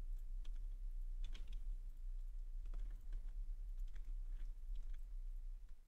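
Scattered light clicks of a computer keyboard and mouse, a few in quick runs, over a steady low hum.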